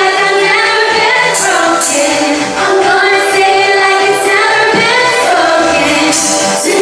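A live pop song: a lead singer holding long notes over instrumental backing.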